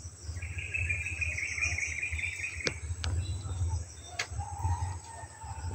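Calling insects and birds among the trees: a rapid trill for about two seconds near the start, then a shorter steady whistle-like call near the end, with a few sharp clicks and a low rumble underneath.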